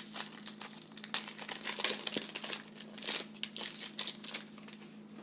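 Crinkling of a trading card pack's wrapper as it is torn open and handled: a dense run of irregular crackles, busiest in the first three seconds and thinning out near the end.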